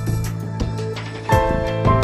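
Background music with a steady beat: sustained tones over a low bass note with regular drum hits.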